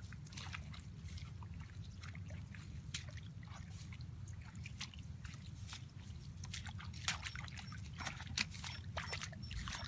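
Water splashing and dripping in many small, irregular splashes, a few louder ones near the end, over a steady low rumble.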